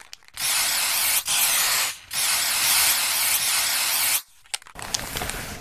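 Aerosol spray-paint can hissing in two long sprays, the second a little longer, with a short break between them. Near the end comes a softer, shorter hiss with a few sharp clicks.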